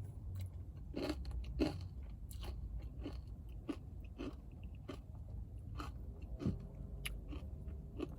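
A person chewing a mouthful of acai bowl, with irregular crunches and mouth clicks, about one or two a second.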